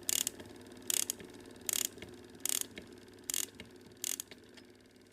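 Clockwork automaton mechanism running: a ratchet-like click about every 0.8 seconds over a steady whirr of gears, the clicks growing weaker near the end.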